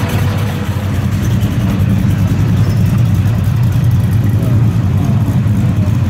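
1970 Dodge Charger's 392 HEMI V8 running at low revs as the car pulls away slowly. The exhaust note is a steady, low, throbbing rumble with no big revs.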